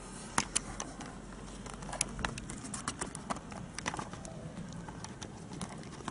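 Irregular sharp clicks and knocks from a handheld camera being turned around and panned, with a low steady background hum.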